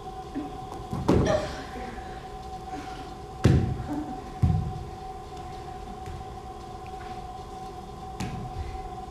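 Several heavy thuds of a barefoot dancer's body and feet meeting a stage floor, the loudest about three and a half seconds in, over a steady droning tone.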